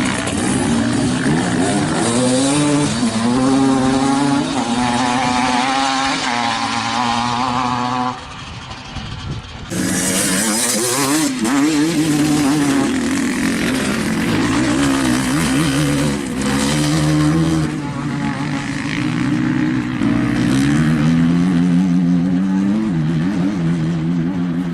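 Off-road vehicle engines running hard and revving, their pitch repeatedly rising and falling. The sound drops briefly, and about ten seconds in it cuts abruptly to another passage of engine running.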